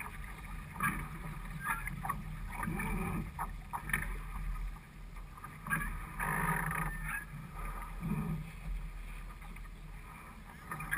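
Water sloshing and splashing against the hull of a small sailing dinghy under way, with wind rumbling on the microphone and occasional sharp knocks from the boat and its rigging; a heavier splash comes about six seconds in.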